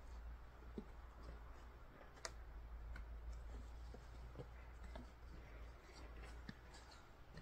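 Almost silent outdoor snow scene: a low steady rumble with faint, scattered small clicks and light scrapes.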